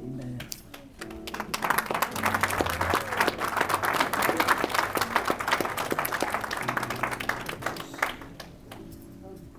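Audience applauding, starting about a second in and dying away near the end, over quiet background music.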